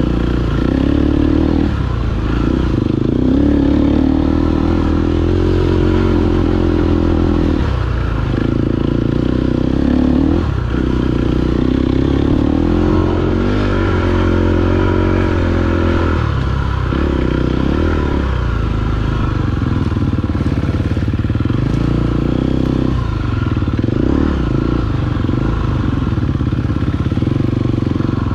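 KTM 250 EXC-F Six Days' single-cylinder four-stroke engine running on a trail ride, the throttle opened and eased off every few seconds.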